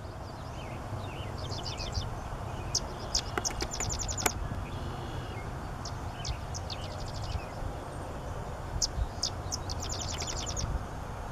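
Sedge wren singing its song twice: a few separate dry, high chips that run into a fast, even staccato chatter.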